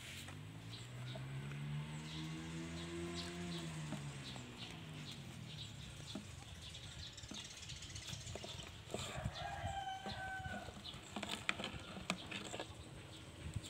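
Farm-animal calls: a long, low call rising and falling in pitch over the first four seconds, then a shorter, higher call about nine seconds in that fits a rooster crowing. Scattered light taps and knocks come from puppies nosing at a metal tin.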